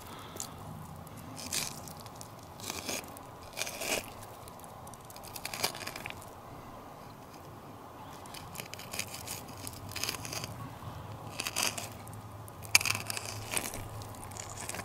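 Wooden-handled fillet knife slicing through raw northern pike flesh along the Y-bones, giving a few faint, irregularly spaced crunches and scrapes as the blade works past the small bones.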